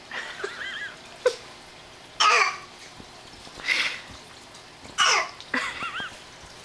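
A toddler doing a fake bad cough: four forced coughs about a second or so apart, the first short, with brief high-pitched squeaky voice sounds between them.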